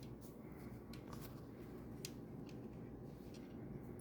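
Faint, scattered light clicks and taps of tiny metal screws and a screwdriver being handled and picked up, against a low room hum.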